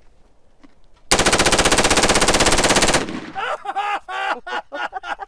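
Full-auto short-barrelled AR-15 firing one burst of about two seconds, a rapid string of shots that cuts off suddenly. Excited voices follow the burst.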